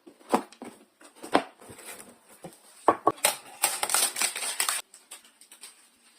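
Cookware and its packaging being handled: several sharp knocks and clicks, then about a second of dense rustling a little over halfway through.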